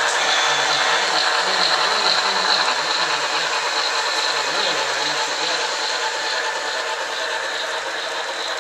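HO-scale model trains running past, a Reading steam locomotive with freight cars among them: a steady whir of motors and wheels on the rails. It grows slightly louder for the first couple of seconds, then eases off a little.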